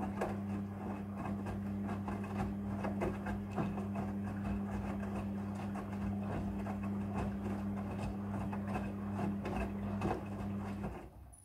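Front-loading washing machine's drum motor humming steadily as the drum turns, with irregular clicks and knocks from the tumbling load of bedsheets and pillowcases; the hum cuts off near the end as the drum stops.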